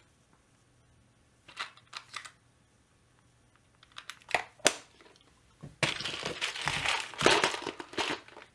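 Rummaging through boxes and bags of small screws and parts: a few light clicks and rattles at first, then a busier stretch of rustling and rattling over the second half.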